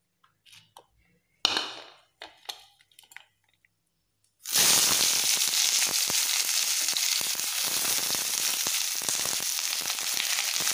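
A few faint clicks and knocks. Then, about four and a half seconds in, sliced onions and green chillies hit hot oil in a steel kadai (wok) and sizzle loudly and steadily.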